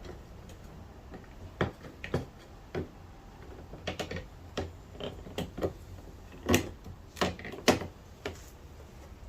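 Irregular clicks and knocks of a new rear door handle and its metal lock rod being worked into place inside the door of a 2004 Cadillac Escalade, with two louder knocks past the middle.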